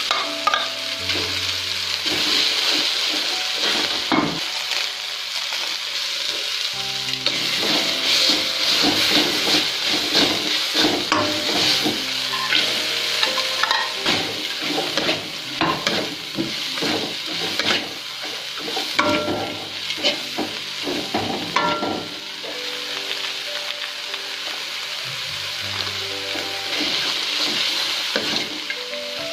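Vegetables sizzling in hot oil in a wok while a spatula stirs them, scraping and knocking against the pan many times.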